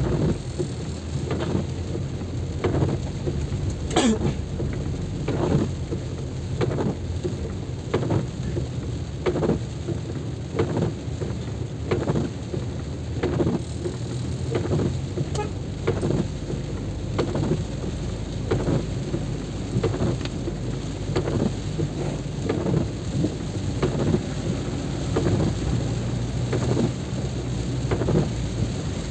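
Heavy rain with a steady low rumble, and a regular knocking about twice a second throughout.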